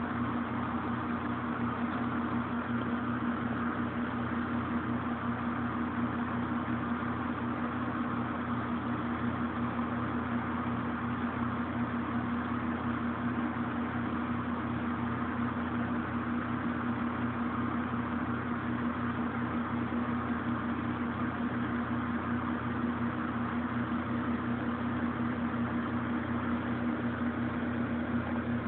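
Steady mechanical hum with a constant low tone, unchanging throughout.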